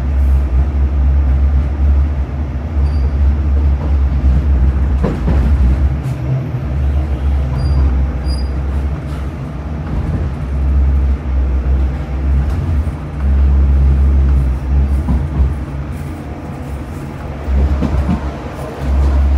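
Sheffield Supertram running between stops, heard from on board: a loud, low rumble of the tram's running gear on the rails that swells and eases, with a single knock about five seconds in.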